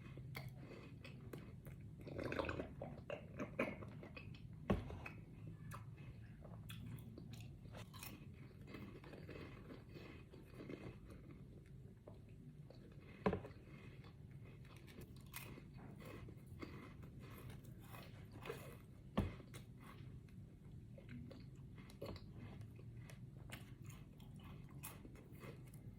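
Close-up chewing and crunching of biscuits, a run of small crunches with a few sharper, louder bites at scattered moments.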